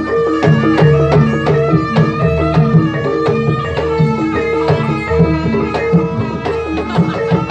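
Live Javanese jaranan ensemble music: hand drums play a quick rhythm over repeated pitched notes of tuned percussion.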